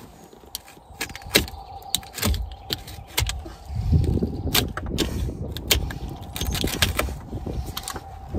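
A rotted, carpet-covered plywood floorboard being pried and pulled up from the floor of an aluminium fishing boat: sharp knocks and clinks against the hull throughout, with a stretch of rough scraping and tearing from about four seconds in.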